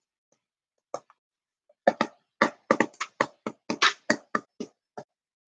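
Quick, irregular clicking taps of typing on a laptop keyboard close to the microphone: a couple of single taps about a second in, then a steady run of keystrokes, about three or four a second.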